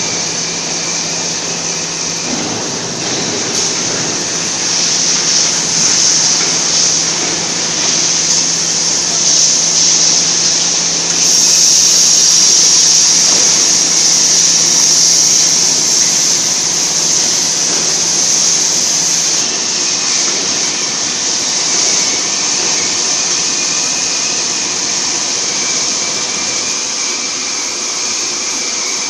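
Oxy-fuel cutting torch on a CNC gantry cutter hissing steadily over steel plate. For about eight seconds in the middle the hiss turns louder and sharper as the cutting-oxygen jet blows through the plate and throws sparks. A faint low hum stops at about the same point.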